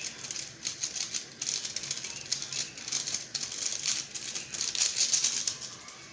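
Seasoning sachet shaken and crinkled over a wok of broth: a dense, dry rattling of granules and packet that swells, then stops near the end.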